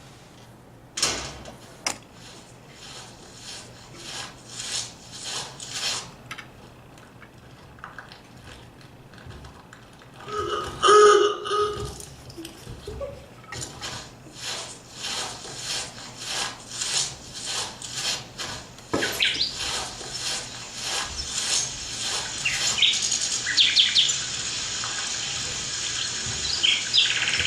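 Edited soundscape of footsteps walking at about two steps a second, with birds chirping and a steady rush like running water building up in the second half. A short, louder pitched sound stands out about eleven seconds in.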